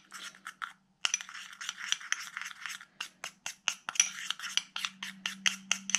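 Metal teaspoon stirring a thick paste of toothpaste and sugar in a glass jar, scraping and clinking against the glass in quick strokes, about four a second. The strokes begin about a second in, after a short pause.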